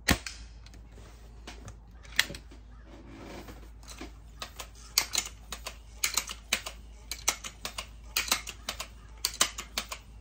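Seneca Dragonfly MK2 .22 multi-pump pneumatic air rifle firing a pellet with one sharp crack. It is followed by a run of light, irregular mechanical clicks and clacks as the rifle is handled upright.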